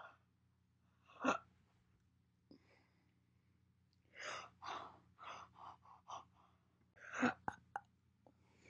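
A woman hiccuping: two sharp, sudden hiccups, one about a second in and one near the end, with a run of short breathy sounds between them.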